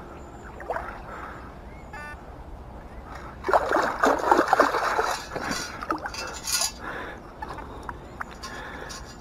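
Water sloshing and splashing for about two seconds, starting about three and a half seconds in, as a detectorist's scoop is worked in shallow lake water. A short beep comes about two seconds in.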